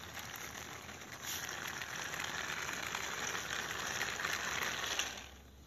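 Small plastic toy tractor and trailer pushed by hand across rough concrete, its plastic wheels giving a steady gritty rolling noise that gets louder about a second in and fades out near the end.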